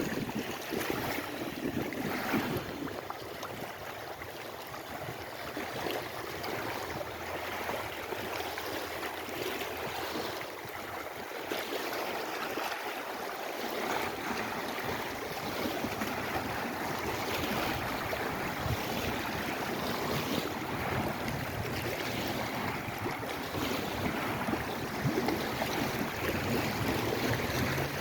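Lake Erie waves washing steadily in gentle swells, with wind gusting across the microphone and rumbling near the start and again at the end.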